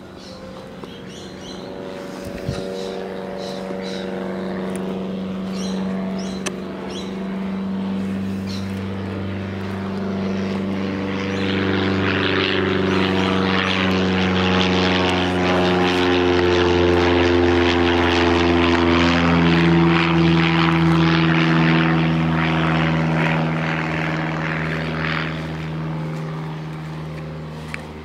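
Propeller aeroplane flying over: a steady engine drone that grows louder to a peak about two-thirds of the way through, drops slightly in pitch as it passes, then fades away.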